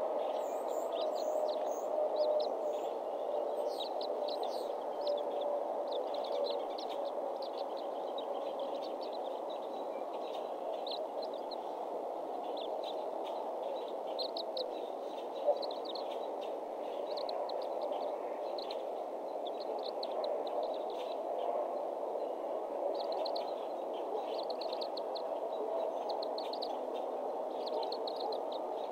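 Many short, high bird chirps scattered throughout, over a steady even outdoor background noise, with one sharp click about halfway through.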